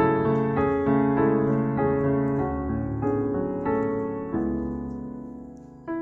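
Background piano music: notes and chords struck one after another, each ringing and fading, with a longer chord dying away in the second half before a new note sounds near the end.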